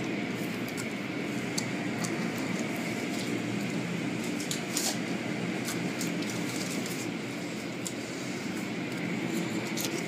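Automatic car wash tunnel equipment running with a steady hum and hiss, heard from inside a car on the conveyor, with scattered light ticks throughout.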